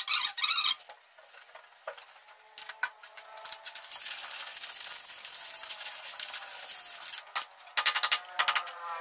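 Hand sanding a refrigerator's metal door with 120-grit sandpaper: a long scratchy rubbing, with high squeaks at the start and again about eight seconds in.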